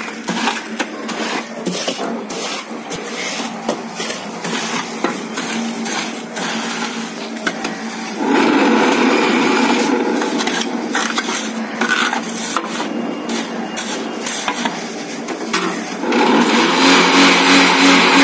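Hollow concrete block making machine at work: concrete mix and a metal rod scraping and knocking in the steel mould hopper, with many sharp clicks, then about eight seconds in the machine's electric vibrator starts a loud steady buzz that shakes the mould to compact the mix. The buzz eases slightly a few seconds later and gets louder again near the end.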